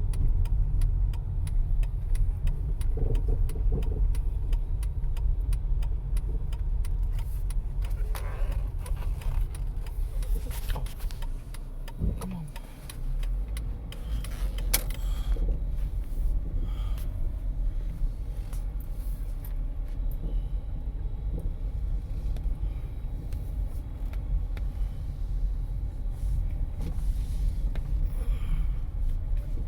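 A car driving, with a steady low rumble of engine and road noise that eases briefly about twelve seconds in.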